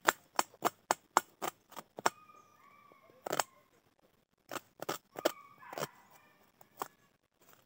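Small knife chopping onion on a steel plate: a run of sharp clicks as the blade strikes the metal, about four a second for the first two seconds, then slower and more scattered.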